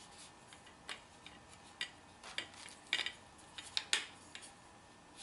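Collapsible photo light stand being unfolded, its metal legs and tubes clicking and knocking against their plastic joints as they swing open: about half a dozen sharp clicks and rattles, the loudest about three and four seconds in.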